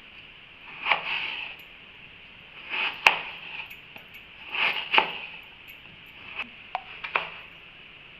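Knife cutting raw potato into French-fry sticks: a few slicing strokes, each with a sharp clink of the blade on the cutting surface, then some lighter taps near the end.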